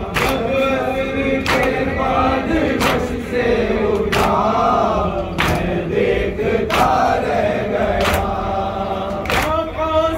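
Group of men chanting a noha in unison, with a sharp slap of hands beating chests together (matam) about every 1.3 seconds, eight strikes in all.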